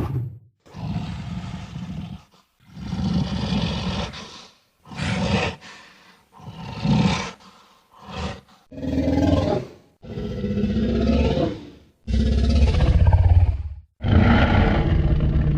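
A string of Tyrannosaurus rex roar sound effects: about nine separate deep, growling roars, each one to two seconds long, with short silent gaps between them.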